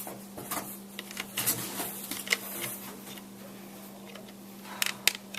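MacBook booting up: a steady low hum with scattered light clicks and ticks, a few sharper clicks near the end.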